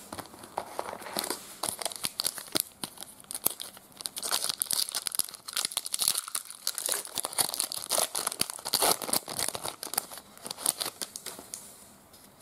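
Trading card pack wrapper being torn open and crinkled by hand: a dense, continuous run of crackles and rustles.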